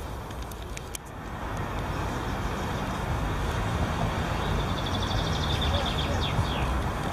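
Steady hum of city traffic, swelling a little about a second in, with a short high bird trill about five seconds in.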